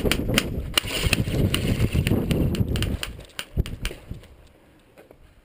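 Airsoft guns firing in quick irregular shots, mixed with heavy rustling and handling noise, dying away about three to four seconds in.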